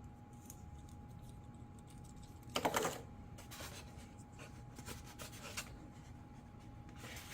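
Hands handling packaging and small plastic parts: a short rustle about two and a half seconds in, then scattered light clicks and taps.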